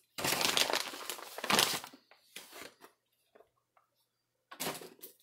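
Crinkling and rustling of MRE accessory-packet wrappers being handled, about two seconds of loud crinkling, a few faint ticks, then another short rustle near the end.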